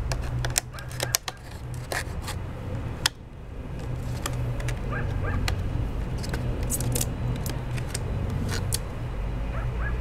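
Thin PET plastic from a cut-down water jug crinkling and clicking as it is handled, with irregular sharp crackles while a phone is fitted inside it. A steady low rumble runs underneath.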